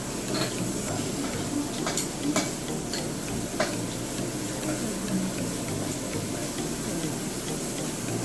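Pork ribs sizzling on a tabletop grill, a steady hiss, with several sharp clinks of tableware in the first few seconds.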